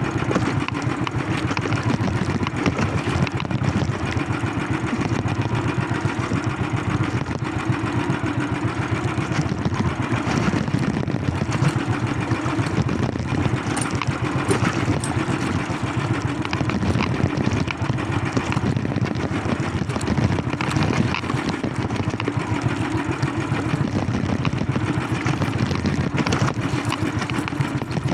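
A small engine running steadily at an even speed for the whole stretch, its firing pulses dense and unbroken.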